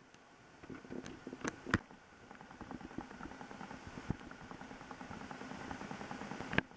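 Raindrops pattering and dripping during a thunderstorm: dense, irregular ticking with a few louder sharp drops, over a faint steady hum.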